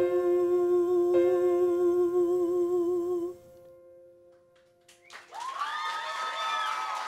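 A woman's voice holds the song's final sung note with vibrato over a sustained accompanying chord, cutting off about three seconds in while the chord fades. About five seconds in, the audience breaks into cheers, whoops and applause.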